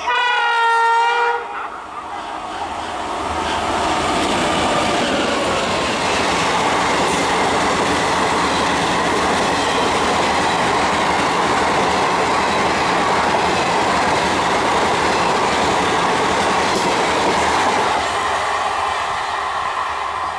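An electric locomotive's horn sounds once, about a second long. Then a passenger express of ICF coaches runs past at speed with a loud, steady rush of wheels on rails, which eases off near the end.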